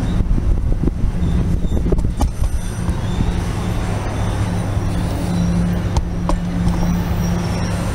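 A train passing close by: a steady low engine hum under the noise of the wheels on the rails, with a few sharp clicks.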